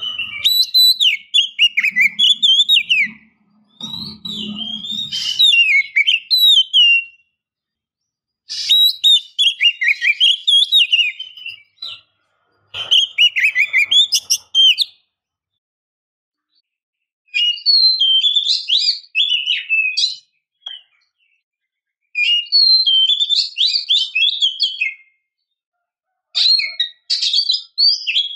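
Oriental magpie-robin song: bouts of fast, varied whistled warbling a few seconds long, separated by short pauses, about six in all. It is a lure track of a female kacer calling, meant to set a male singing.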